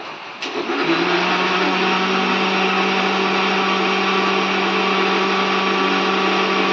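Electric mixer grinder switched on and running at a steady speed, churning milk cream with warm water into butter. The motor starts about half a second in with an even hum and stops abruptly at the end.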